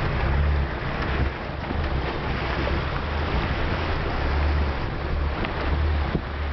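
Land Rover wading up a shallow, rocky river: water rushes and splashes around the vehicle over a low engine rumble.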